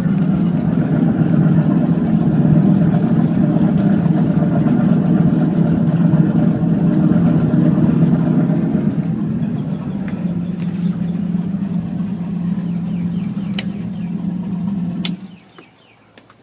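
The twin inboard engines of a 1981 Chris Craft Catalina 38 idling together, a steady low hum that eases slightly about two-thirds of the way through. The sound cuts off abruptly near the end.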